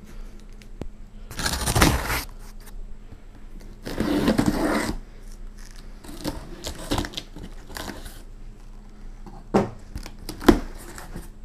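Packing tape being cut and torn open on a cardboard shipping box: two long ripping sounds of about a second each, then a few sharp knocks and rustles as the cardboard is handled.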